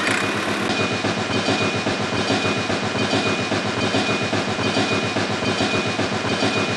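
Small engine of a miniature DIY machine running steadily with a rapid, even chugging rhythm. A thin, steady high whine joins about a second in.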